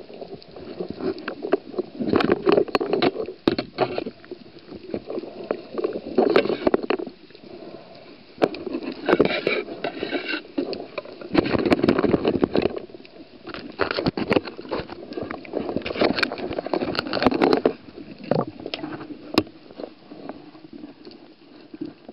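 Muffled underwater noise of water moving around a diver and a handheld camera, rising and falling in surges, broken by many sharp clicks and knocks of the speargun gear, all heard through a waterproof camera housing.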